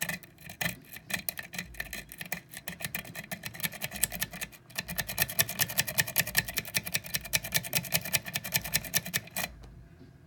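Metal lock-pick rake scrubbed rapidly back and forth in the keyway of an Abus 72/40 padlock under tension, the pins clicking many times a second. The clicking pauses briefly about halfway through, comes back faster and more even, then stops suddenly near the end.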